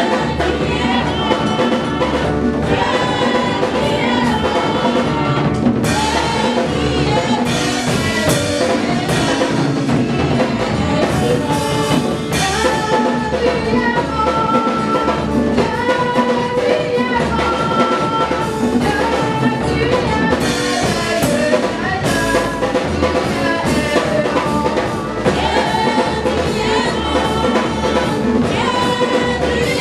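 Live gospel praise song: several women singing together into microphones, backed by a drum kit keeping a steady beat.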